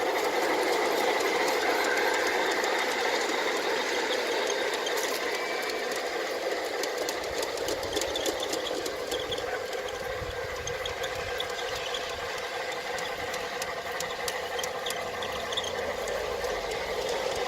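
G-scale Bachmann model locomotive running along the track, with a steady motor whir and scattered sharp clicks from the wheels on the rails. The clicks come more often from about five seconds in.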